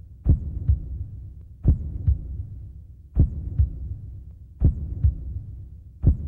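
Slow heartbeat sound effect: a lub-dub double thump about every one and a half seconds, five times, with a low hum between the beats.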